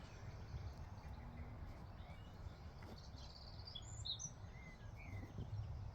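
Quiet outdoor ambience: a steady low rumble with a few short, high bird chirps about three to five seconds in.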